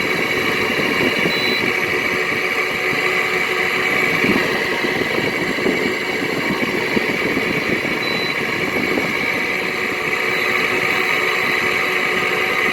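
Frigidaire window air conditioner running, its fan and compressor making a steady, noisy whir with a gravelly edge.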